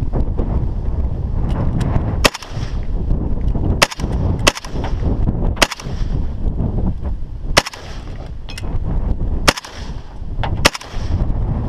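Gunshots: about seven loud shots fired one at a time at uneven spacing of roughly one to two seconds, with fainter, more distant shots between them. Wind rumbles on the microphone throughout.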